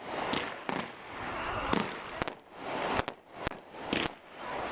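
Aerial fireworks shells bursting overhead: several sharp bangs spread over the few seconds, with rushing, crackling noise swelling between them.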